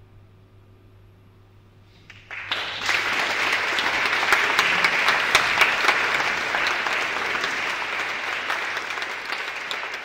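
After about two seconds of quiet, an audience breaks into applause at the close of a choral piece, a dense clapping that begins to fade near the end.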